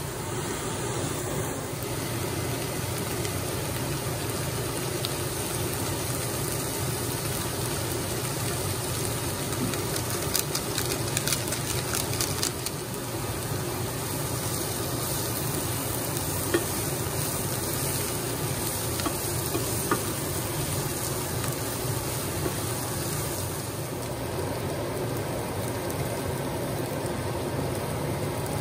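Diced onions sizzling steadily in oil in a frying pan, with a wooden spatula stirring and scraping them; a quick run of clicks from the spatula about a third of the way in.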